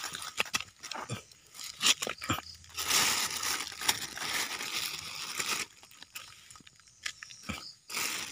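A plastic bag rustling and crinkling as it is handled and pulled open, with short crackles and clicks in between.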